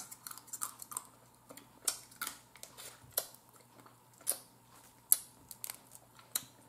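Boiled blue crab shell being picked apart by hand: scattered sharp clicks and cracks, about eight, spread unevenly, with soft sucking and mouth sounds as the meat is pulled from the shell.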